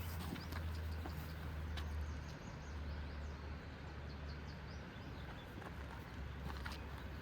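Walking footsteps on a trail, heard as scattered clicks, over a steady low rumble and a constant hiss. A few short, faint bird chirps come in around the middle.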